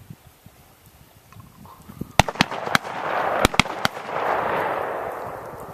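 A volley of shotgun shots from several hunters, about six in quick succession over a second and a half, followed by a rolling echo that fades slowly.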